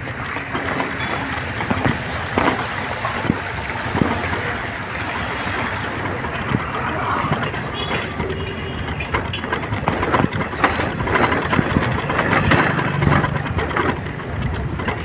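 A vehicle's engine running as it travels along a rain-soaked road, with a steady hiss of tyres on the wet surface and frequent knocks and rattles.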